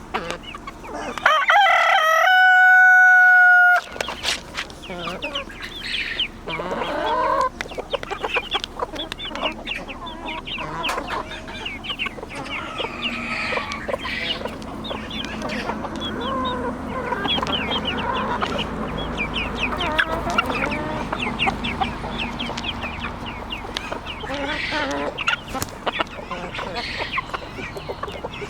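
A flock of chickens clucking and calling throughout, with a rooster crowing loudly once about a second in, its crow ending on a long held note.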